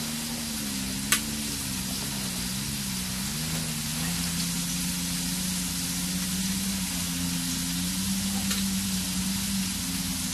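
Steady hiss from the radiant propane heater burning under a frying pan, with a low wavering drone and a single click about a second in.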